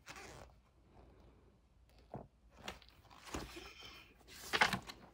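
Pages of a paperback picture book being turned and handled: a soft paper swish at the start, then a few short rustles and taps as the book is laid flat and the page smoothed down, the loudest rustle close to the end.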